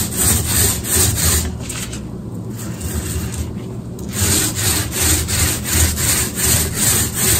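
Paint roller rolling wet paint back and forth over a cabinet panel, in quick regular strokes about two to three a second, with a couple of brief pauses.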